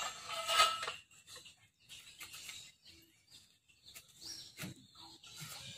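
Birds chirping over quiet outdoor ambience, with a few faint short knocks.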